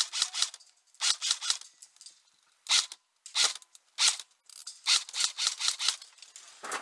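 Airsoft guns firing: sharp cracking shots, some single and some in quick bursts of two to four, coming about once a second with a brief lull a little past two seconds in.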